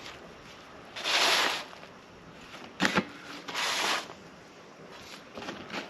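Rustling and scraping handling noises from emptying a potato grow bag: two rough rustling bursts of about half a second, about a second in and again past three seconds, with a pair of sharp knocks in between.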